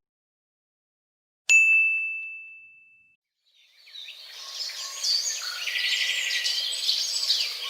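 A single bright ding, a bell-like tone struck once that rings and fades over about a second and a half. After a short silence, a busy twittering of bird chirps fades in and carries on.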